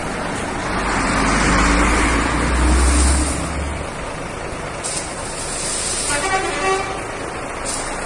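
Deep motor-vehicle rumble that swells for about three seconds and then drops away, over steady outdoor traffic noise; a short tone comes about six seconds in.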